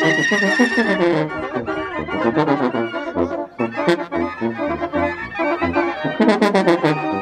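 Mexican regional band music: reed and brass instruments playing over a stepping bass line, with a run of sharp percussion hits from about six seconds in.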